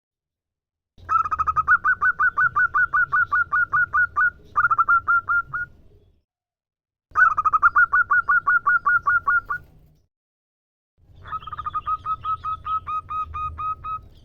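Female zebra dove (perkutut) calling in rapid runs of short, evenly spaced staccato coo notes, about five or six a second. There are three bursts, each lasting a few seconds, with brief pauses between them.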